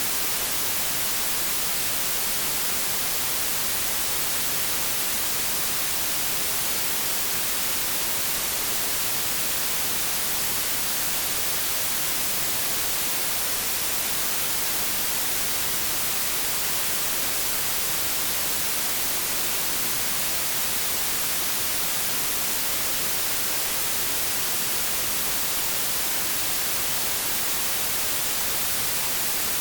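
White noise: a steady, even hiss with no change, strongest in the high frequencies.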